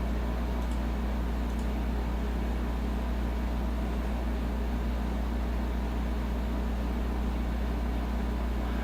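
Steady low electrical hum over a faint hiss, unchanging, with no distinct clicks or knocks.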